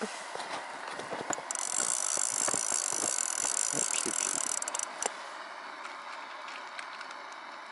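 A small fishing reel's mechanism whirs for about three and a half seconds, starting and stopping sharply, as line is wound in, with light clicks and rattles around it.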